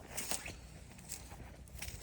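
Faint footsteps with a few light, irregular ticks and crackles.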